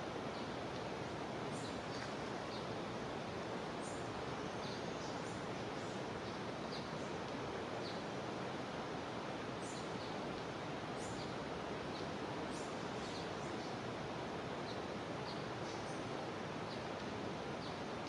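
Steady rush of a jungle river, with short high chirps from birds or insects scattered throughout.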